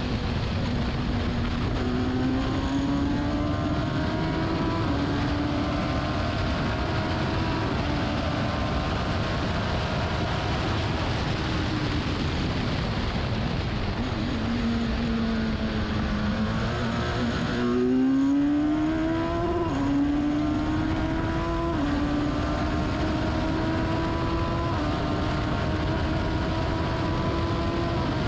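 Race car engine running hard through its gears. The pitch climbs steadily and drops back at each upshift. About halfway the revs sink as it slows, then it accelerates hard again and keeps shifting up.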